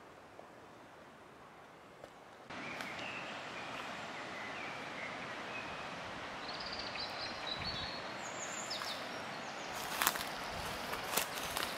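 A shallow mountain river running over stones: a steady rush that starts suddenly about two and a half seconds in, after faint woodland quiet. Birds chirp over it, and near the end there are several sharp knocks and crunches.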